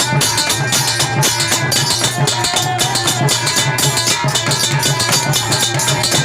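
Instrumental passage of a kirtan bhajan: hand drums keep a steady, quick beat under a sustained melodic instrument, with no singing.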